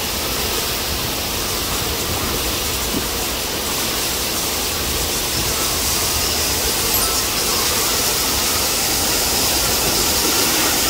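Steady rush of running water and splashing from water slides and pools, an even hiss with no breaks.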